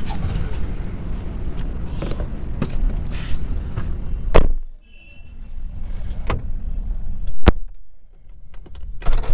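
A Maruti Suzuki Alto's door is shut with a loud thud about four seconds in, and the outside noise drops away after it. A second sharp knock follows a few seconds later, over a low rumble.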